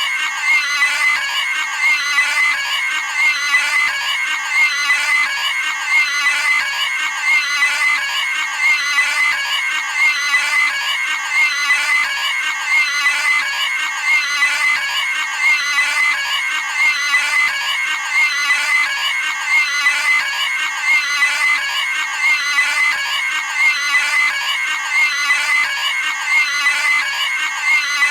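Cartoon pig squealing sound effect, high-pitched and repeating over and over in a steady loop.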